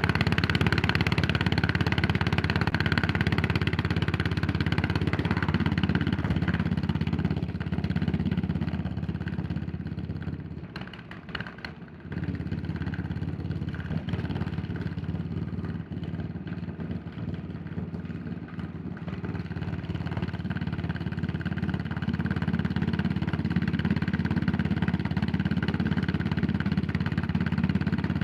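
Yamaha SR400's single-cylinder four-stroke engine running on the road. The engine drops much quieter for a couple of seconds about a third of the way in, as the throttle is closed. It then picks up again and builds back to a steady pull.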